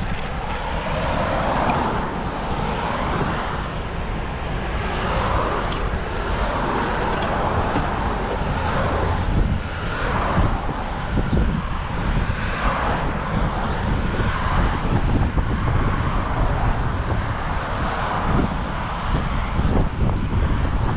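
Wind rushing over a bicycle-mounted GoPro's microphone as it rides along, with car traffic swelling and fading as it passes on the road alongside.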